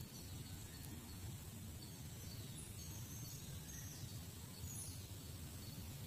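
Outdoor ambience: a steady low rumble with a few faint, short, high chirps now and then.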